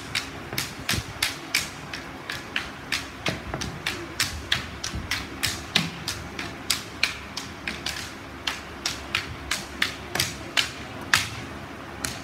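Wooden staffs clacking against each other in a sparring exchange: a rapid, irregular series of sharp knocks, about three a second, with a louder strike about eleven seconds in.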